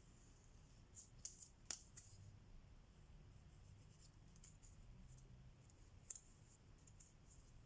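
Faint cross-stitching sounds: a needle pushed through the fabric and thread drawn through it with soft scratchy rasps, and a few light clicks, several between one and two seconds in and one more about six seconds in.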